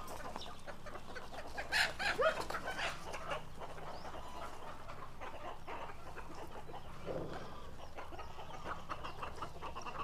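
Flock of hens and roosters clucking, with a cluster of short calls about two seconds in and another call about seven seconds in.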